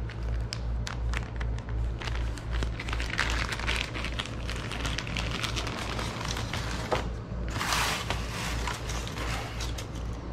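Plastic wrapping and foam packing crinkling and rustling as the accordion is unwrapped by hand, with a louder stretch of crinkling near the end, over a low hum.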